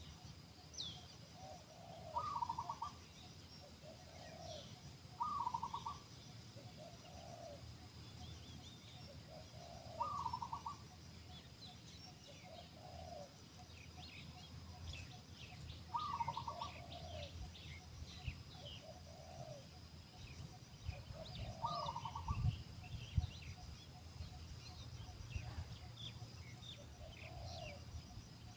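Spotted doves cooing, a short phrase repeated every few seconds, with faint high chirps of small birds behind.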